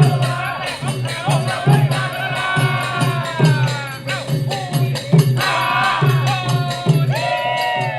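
Background music with a steady beat and a gliding melody, with shaker-like percussion.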